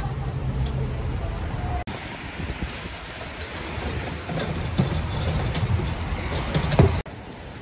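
Traffic passing on a wet street, a steady low rumble with tyre hiss, under scattered knocks and rustling from tarps and stall gear being moved, with one sharp knock near the end.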